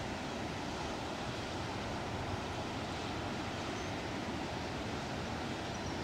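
Steady rush of ocean surf with wind, an even wash of noise with no distinct breaks or impacts.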